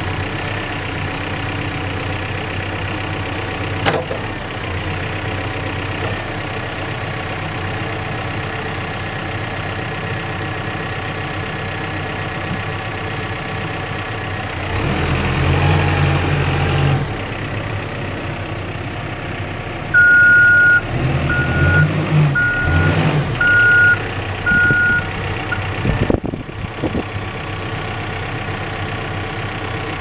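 Cat 430F backhoe loader's diesel engine idling steadily, working harder for a couple of seconds about halfway through as the loader arm lifts. Later the back-up alarm sounds: one longer beep, then five short beeps, with the engine louder under load around them.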